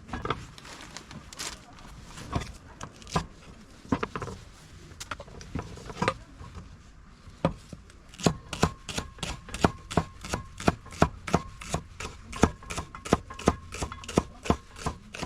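Knife chopping on a cutting board: a few scattered strokes, then from about halfway a steady run of about four chops a second.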